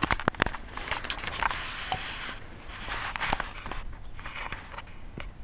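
Close rustling and rubbing handling noise on the camera, with a burst of sharp clicks at the start and scattered knocks after it.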